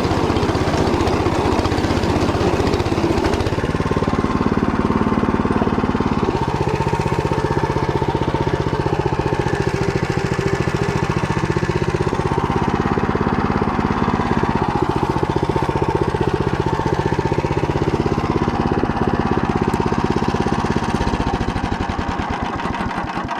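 Walk-behind tractor engine running under load while its rotary tiller churns through stubble; the engine note shifts several times as the blades bite deeper and the governor adds throttle. The sound stops abruptly at the very end.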